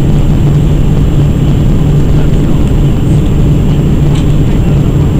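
Steady low rumble of an Airbus A319-100's engines and airframe heard from inside the passenger cabin, as the airliner rolls on the ground just after landing.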